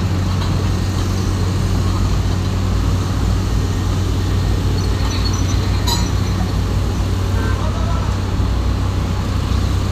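Heavy diesel machinery engine running steadily with a low drone. A single sharp click sounds about six seconds in.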